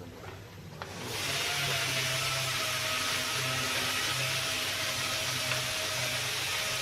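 A motor-driven machine starts about a second in and runs steadily: an even hiss over a faint hum.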